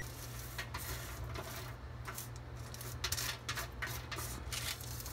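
A utensil stirring and scraping pumpkin seeds across a parchment-lined metal baking sheet on an oven rack: soft rubbing with a few light clicks, over a low steady hum.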